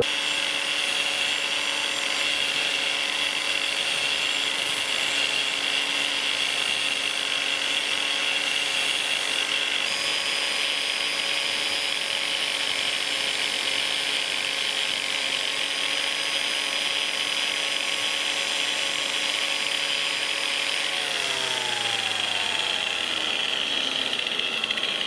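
Angle grinder with a sanding disc running steadily against a steel ring turning in a metal lathe, grinding a radius onto its face with a high, even whine. About four seconds before the end the pitch of the machinery falls as it spins down.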